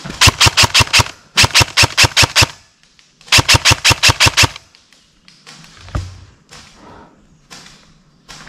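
Airsoft rifle firing three quick full-auto bursts, about eight to nine shots a second, each burst about a second long, close to the microphone. A single duller thump follows a little later.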